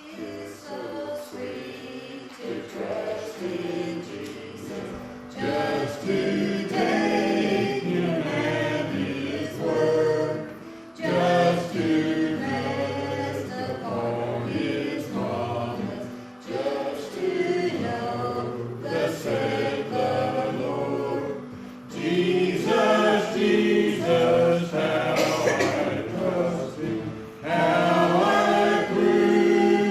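Choir singing a gospel hymn in phrases, with short breaths between them about every five seconds.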